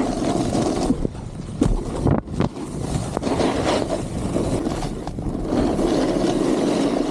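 Snowboard sliding and carving on snow, its edges scraping, with wind rushing over the microphone; a few sharp knocks from bumps about two seconds in.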